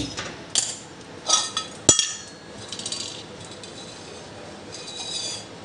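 Metal clinks and knocks as a small metal kadhai is handled and set down on a gas stove's burner. There is one sharp, ringing clank about two seconds in, and lighter clatter before and after it.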